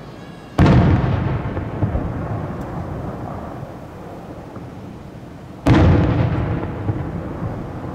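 Two aerial firework shells bursting, about five seconds apart, each a sudden loud bang that dies away slowly over several seconds.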